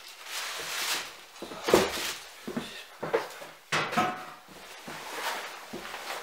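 Plastic bag rustling as it is carried and set down, with footsteps and sharp knocks on wooden floorboards, the loudest about two seconds in and another near four seconds.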